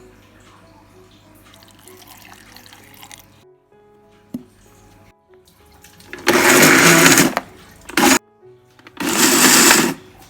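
Electric blender switched on in short bursts, three times in the second half, each start and stop abrupt, over soft background music.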